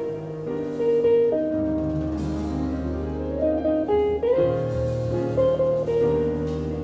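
Jazz quartet of archtop guitar, piano, upright bass and drums playing live, with long sustained chords changing every second or so over a low bass line.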